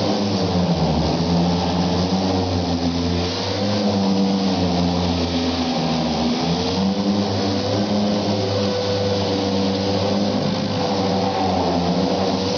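Astro orbital 'mud hog' body sander running steadily while sanding body filler, a continuous motor whine over a hiss, its pitch wavering a little from moment to moment.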